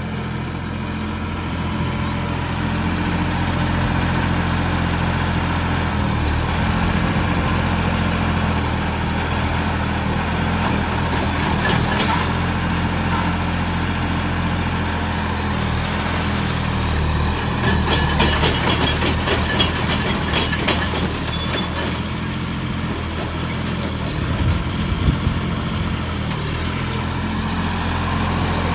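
John Deere tractor's diesel engine running steadily as the tractor drives slowly closer, growing a little louder in the first few seconds. Sharp clattering cuts in briefly about twelve seconds in and again for a few seconds past the middle.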